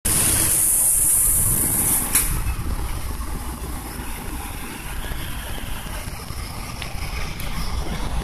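Airliner cabin noise during the takeoff roll: jet engines running at high power over a low rumble from the wheels on the runway. A high hiss is loudest for the first two seconds, and there is a single click about two seconds in.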